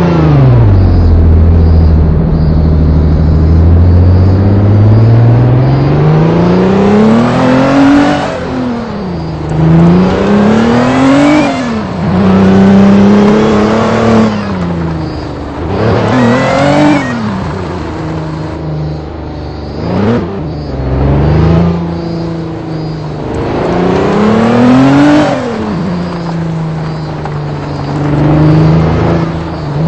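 A vehicle engine under way, its revs repeatedly climbing and dropping back about half a dozen times, with steadier running in between.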